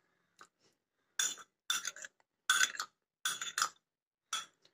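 Metal spoon clinking and scraping against a ceramic mug while stirring sweet corn kernels: a run of short, irregular clinks, about one or two a second.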